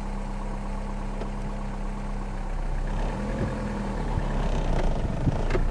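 Steady low engine-like hum, with a held low tone that fades out about halfway through.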